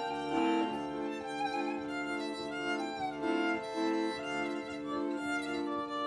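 Two violins and an accordion playing an instrumental improvisation: long held notes sound steadily under a moving line of shorter notes.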